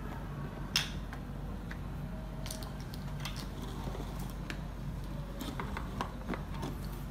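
Small plastic toy pieces clicking and tapping as they are handled and set down on a plastic toy ice cream cart, a few sharp clicks scattered through, over a steady low hum.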